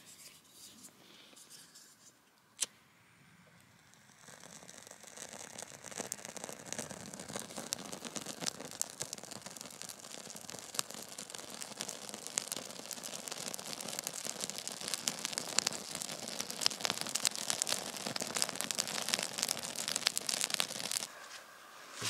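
Small campfire of dry birch twigs catching light and crackling. The crackle starts about four seconds in and grows louder and busier, after a single sharp click about two and a half seconds in.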